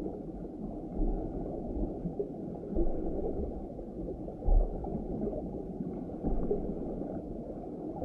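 Muffled underwater ambience: a steady low rumble with gurgling, and soft low thuds every second or two.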